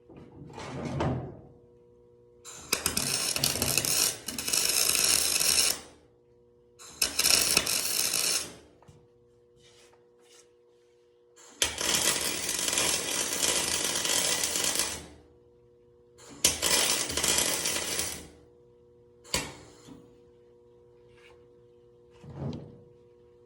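MIG welder laying short beads on aluminum: the arc crackles and hisses in four main bursts of about one and a half to three and a half seconds each, with quiet gaps and a few brief blips between them. A faint steady hum runs underneath throughout.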